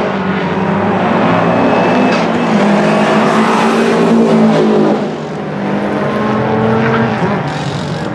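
Subaru Legacy RS Group A's turbocharged 2.0-litre flat-four boxer engine running hard as the car drives through the corners under load. The sound dips in loudness about five seconds in, as the car moves away.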